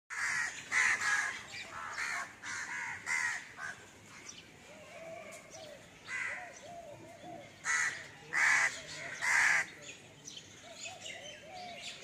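Crows cawing: a quick run of short caws in the first few seconds, then single caws spaced about a second apart.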